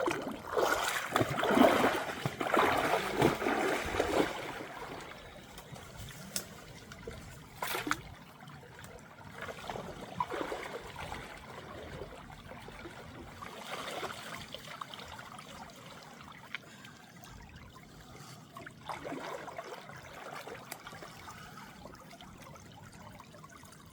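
Shallow river water trickling and running. During the first four seconds there is louder, irregular splashing and sloshing from wading in the stream, and one sharp click comes at about eight seconds.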